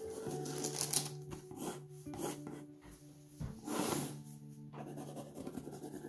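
Pencil scratching across a painted canvas in short sketching strokes, over soft background music with long held notes.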